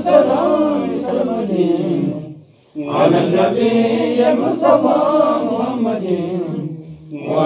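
Chanted mawlid menzuma, an Ethiopian Islamic devotional song in praise of the Prophet, sung by male voice in two long phrases with a short break for breath about two and a half seconds in.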